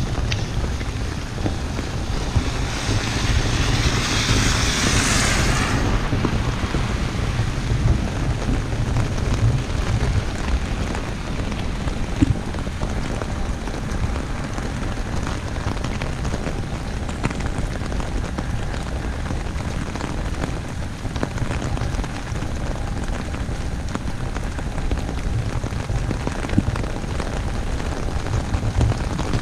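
Heavy rain pattering steadily on an umbrella, with a low wind rumble on the microphone. A louder hiss swells about two and a half seconds in and cuts off sharply a few seconds later.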